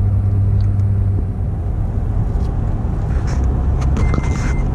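Car running, heard from inside the cabin as a steady low rumble; a low hum fades out about a second in. Near the end an electronic beep sounds once.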